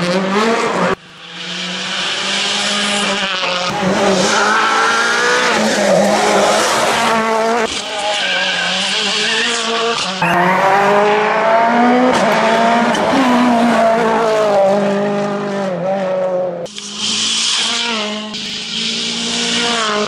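Rally cars driven hard on a tarmac stage, their engines revving up and down through the gears as they pass. The sound is a string of short clips that change abruptly several times.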